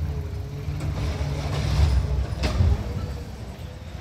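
Automated side-loader garbage truck running down the street, its engine and hydraulic grabber arm working, with a steady low hum and one sharp knock about two and a half seconds in.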